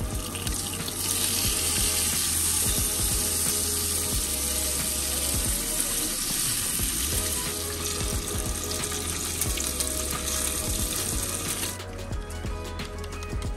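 A steady high hiss over background music with a steady bass line. The hiss cuts off sharply near the end, leaving the music alone.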